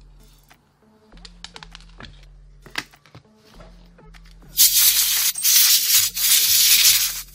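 Loud hiss of compressed air from a blow gun clearing debris out of an opened impact driver's housing, starting about four and a half seconds in and broken by two brief pauses. Before it, faint clicks of parts being handled.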